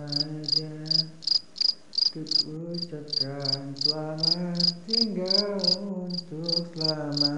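A voice humming low, held notes that shift pitch now and then, over a steady run of short, high, cricket-like chirps, about three a second.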